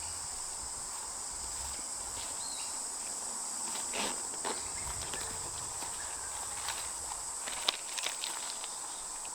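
Steady high-pitched insect drone, with a few scattered light clicks and knocks, the sharpest about three-quarters of the way through.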